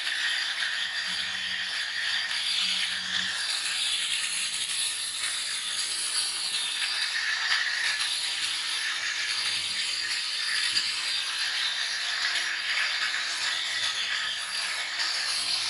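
Handheld angle grinder running with its disc against a bicycle chain, grinding steadily while the chain links rattle under it.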